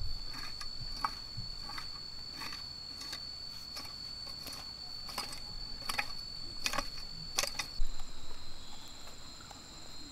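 Three-pronged garden cultivator striking and scraping into dry, crumbly soil, about one stroke every 0.7 seconds, stopping near the end. A steady high insect trill runs underneath.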